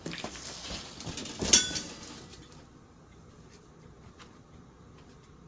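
Hands rummaging and rustling among parts, with one sharp ringing metallic clink about a second and a half in, then only faint small handling sounds.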